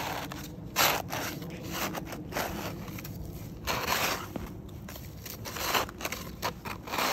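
A plastic toy scoop digging and scraping into packed snow, crunching in irregular strokes about a second apart.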